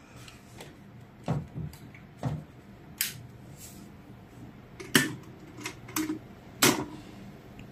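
Scattered light clicks and taps, about seven in all, the loudest two in the second half: a hand working the cook switch lever of an Ikon rice cooker.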